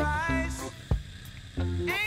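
Background music: a bass line, a drum hit about a second in, and a lead melody that slides in pitch.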